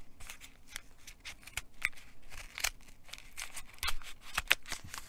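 Scissors cutting through a rolled paper packet: a run of short, sharp snips, the loudest two near the end.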